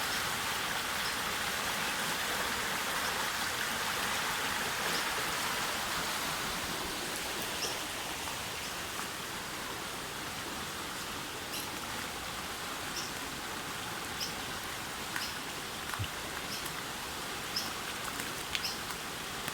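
Storm-swollen creek rushing past a bridge: a steady wash of flowing water, a little louder in the first few seconds, with faint short high ticks now and then.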